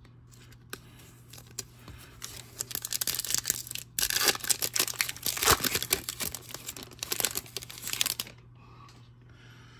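Upper Deck hockey card pack's foil wrapper being torn open and crinkled as the cards are pulled out. It is a dense crackling from about two seconds in, loudest in the middle, that stops about eight seconds in.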